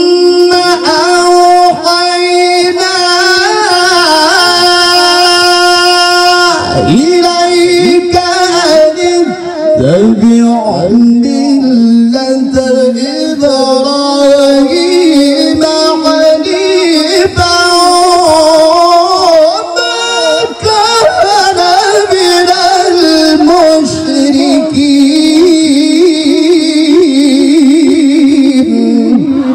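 Man reciting the Qur'an in the melodic, sung mujawwad style into a microphone. He holds a long steady note for about the first six seconds, then winds through quick ornamented turns and held tones, settling onto a lower held note near the end.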